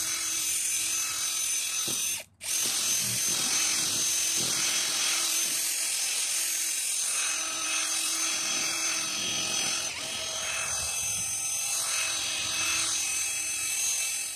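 Ryobi cordless drill spinning a sanding disc against a plastic headlight lens: a steady motor whine with the hiss of the pad grinding the surface. The disc is cutting away the lens's yellowed, oxidised top layer. The sound drops out briefly about two seconds in.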